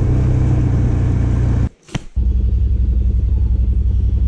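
Stels Guepard 850 ATV engine running steadily. It drops out with a click for a fraction of a second about two seconds in, then comes back as a lower, evenly pulsing engine note.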